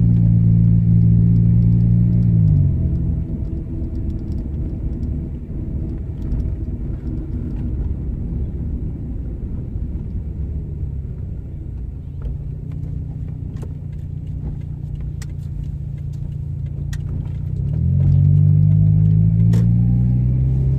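Car driving, heard from inside the cabin. A steady low engine drone drops away after a couple of seconds, leaving tyre and road rumble. Near the end the drone rises in pitch again as the car speeds up, with a few light clicks and rattles.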